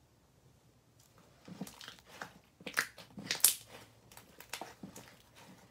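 Slime being stretched and squished by hand, giving a run of short crackles and pops that begins about a second in and is loudest about halfway through.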